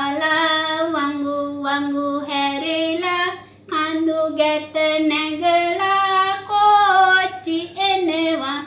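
A woman singing a children's song unaccompanied, in long held notes that step up and down, with a brief pause for breath about three and a half seconds in.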